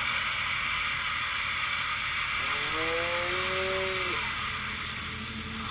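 A cow moos once, a single low call of under two seconds that bends down at its end, over a steady background hiss and hum.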